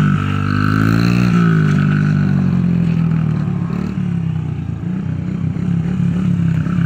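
Small pit bike engine revving under throttle during a wheelie, its pitch rising in the first second and then holding. From about four seconds in it runs lower and more unevenly as the throttle is worked.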